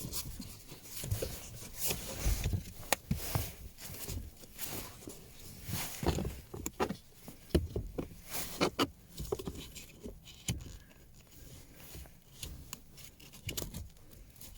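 Irregular clicks, knocks and rustles of a new cabin air filter being handled and pushed into its housing under a VW Tiguan's glovebox.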